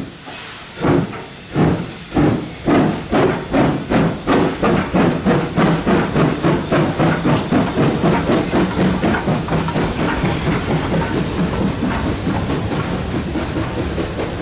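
Steam locomotive pulling away, its exhaust chuffs starting slow and quickening until they run together into a continuous beat. A steady low hum sits under the chuffs in the second half.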